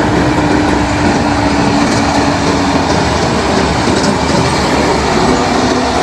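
Large dump trucks driving along a dirt road: a dense rumble of engines and tyres on gravel, with a steady hum that fades out about halfway through.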